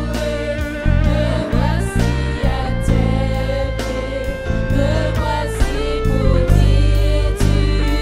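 Worship song in a gospel style: voices singing a melody over a band with bass notes and a steady beat.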